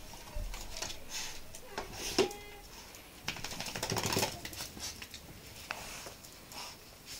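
Two small dogs playing and scuffling on a tiled floor: their claws click and scrape on the tiles, with a short squeal about two seconds in and a louder scuffle about four seconds in.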